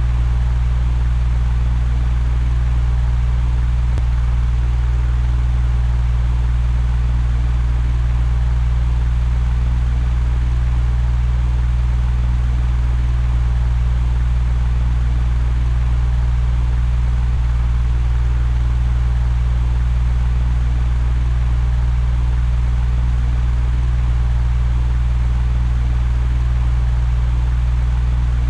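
Electric fan running steadily: a constant low hum with an even rush of air over it.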